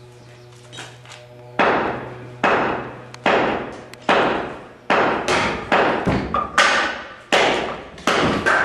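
A low steady hum, then about nine sharp knocks or thuds at an even pace of a little more than one a second, starting about a second and a half in, each fading out before the next. The hum dies away after the first few knocks.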